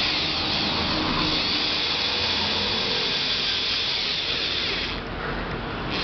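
Cordless drill running steadily with its bit boring into a pedestal fan's upright pole, starting suddenly and stopping after about five seconds.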